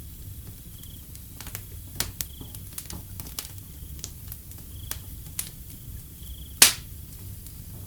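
Wood fire crackling, with scattered sharp pops and one loud pop about two-thirds of the way through, over a low steady rumble. A cricket chirps in short, evenly spaced pulses about every second and a half.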